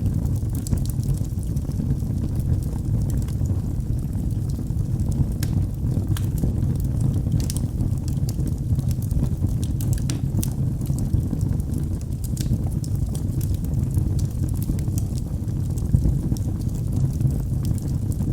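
Wood fire in a fireplace crackling: a steady low rumble with frequent, irregular sharp crackles and pops.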